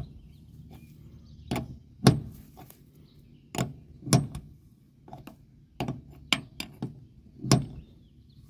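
Steel combination wrench clinking on a hex nut as a wheel's carriage-bolt nut is tightened in short strokes: about ten sharp metal clicks at irregular intervals.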